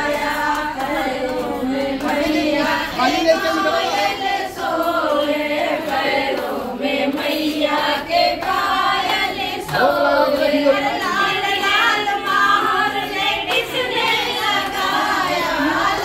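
A group of people singing together, a traditional wedding song sung without instruments and running on without a break.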